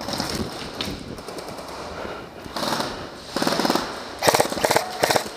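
Airsoft rifles firing several rapid full-auto bursts, the longest near the end, as cover fire.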